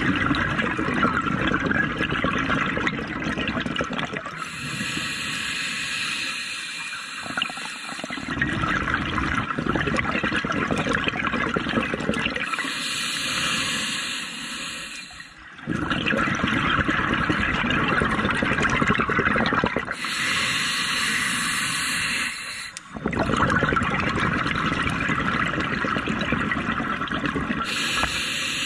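A scuba diver's regulator breathing underwater in a slow, even cycle: bubbling exhalations of about four seconds alternating with hissing inhalations of about three seconds, four breaths in all.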